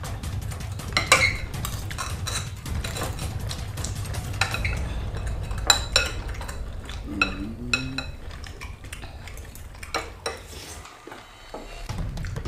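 Cutlery clinking and scraping against bowls and pots as people eat quickly, with many irregular sharp taps over a steady low rumble.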